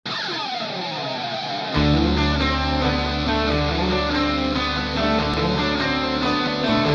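Guitar-driven intro music: falling guitar notes at first, then a heavy bass line and a steady beat come in about two seconds in.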